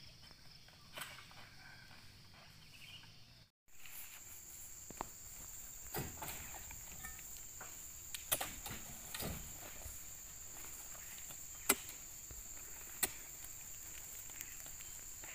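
Oil palm fresh fruit bunches being speared with hooked poles and thrown onto a truck bed: scattered sharp knocks and dull thuds every second or two. From about three and a half seconds in, a steady high insect drone runs behind them.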